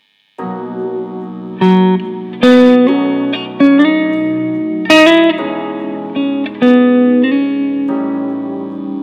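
Archtop hollow-body guitar played slowly, plucked chords and notes struck about once a second and left to ring and fade, starting about half a second in.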